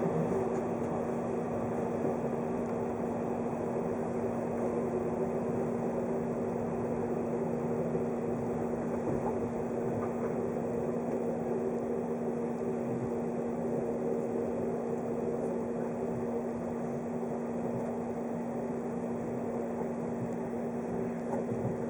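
Steady interior hum of a 583 series electric train, a fixed low drone over even rushing noise, with no rail-joint clicks.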